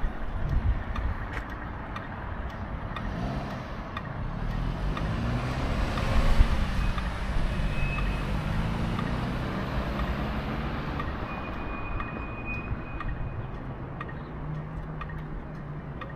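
A motor vehicle driving past, its engine and tyre noise swelling to a peak about six seconds in and then fading.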